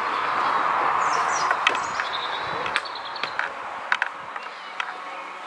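Footsteps on wooden steps and decking: a few sharp, uneven knocks. Under them runs a steady rushing noise that fades about halfway through, and birds chirp.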